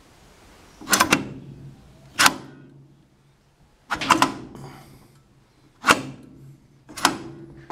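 Coin slide of an old coin-operated laundry machine being pushed and worked with a quarter in it: five sharp metallic clunks a second or two apart. The machine does not start; the mechanism doesn't work.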